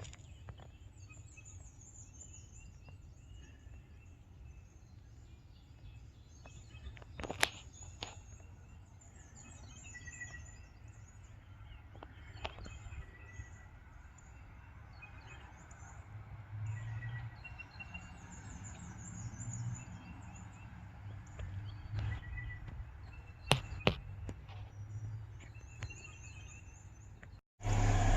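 Faint outdoor ambience: birds chirping over a low steady rumble, with a few sharp clicks or knocks scattered through it.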